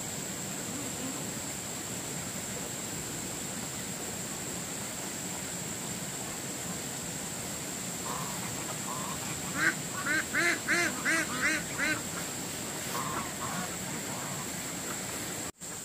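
Ducks quacking: after several seconds of steady background noise, a quick run of about eight quacks comes about ten seconds in, followed by a couple more.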